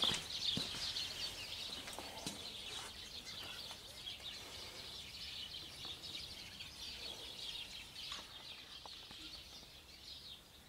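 Faint birds chirping and chattering continuously outdoors, fading near the end, with a few footsteps in the first couple of seconds.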